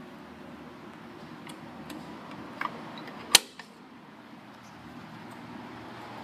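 A steady low hum, with a few light clicks and then one sharp knock a little over three seconds in.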